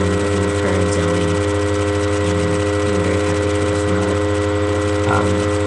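Loud steady electrical hum: a low drone with several higher steady tones above it, unchanging throughout.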